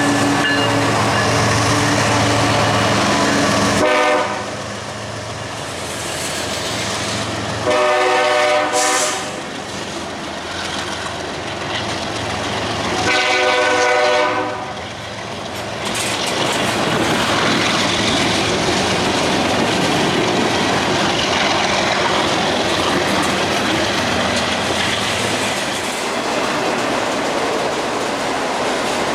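CSX freight locomotive's air horn sounding several blasts over the first fifteen seconds or so, then the slow-moving train rolling past with a steady rumble and the clatter of wheels over the rails.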